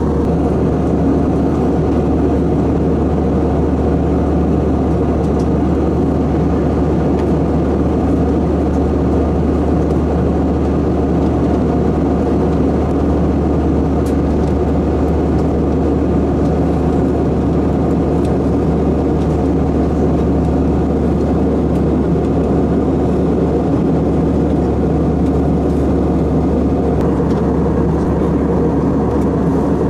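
Steady cabin noise of an Airbus A320 in cruise, heard inside the cabin at a window seat: a constant low drone of the jet engines and rushing airflow, unchanging throughout.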